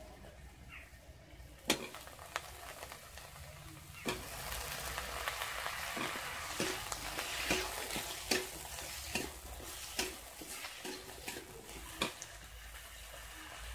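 Eggplant pieces and onion frying in hot oil in a wok, a steady sizzle that grows louder about four seconds in. A metal spatula scrapes and taps against the pan as the pieces are stirred, with one sharp clack near the start.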